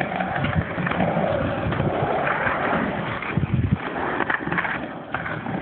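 Inline skate wheels rolling over a hard floor, a steady rumbling hiss broken by a few short knocks in the second half.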